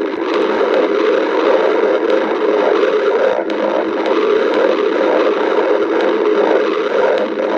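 A person's stomach growling: a continuous low rumble that pulses faintly about twice a second in its second half.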